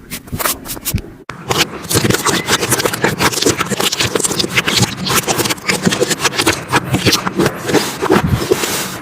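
Slime being squeezed and kneaded by hand, a dense, fast run of sticky pops and crackles. It breaks off sharply about a second in and starts again, busier and louder.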